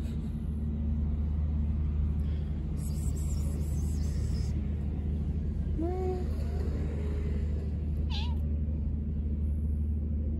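Tabby cat giving a few short meows about six seconds in and another brief one near eight seconds, over a steady low hum.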